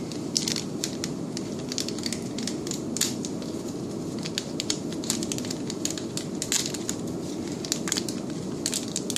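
Irregular light crackling and crinkling from gloved hands handling the new collimator light bulb, over a steady low hum.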